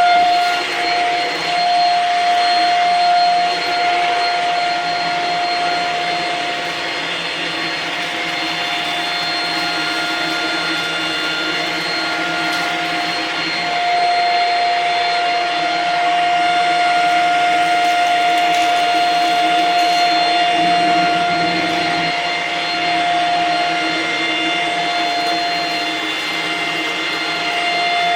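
Shark Rocket corded stick vacuum running: a steady high motor whine over rushing air. The whine fades for a stretch about four seconds in and comes back strongly near the middle.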